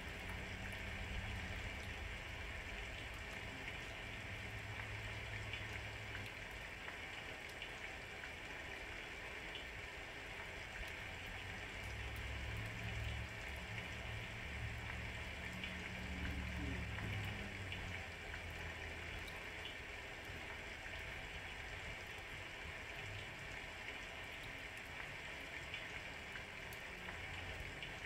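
Steady rain falling, an even hiss with faint drips ticking through it. A low rumble swells and fades twice, near the start and again around the middle.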